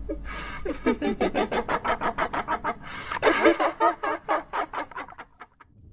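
Rapid stuttering, pitched sound effect from a channel intro, about eight short pulses a second, fading out near the end.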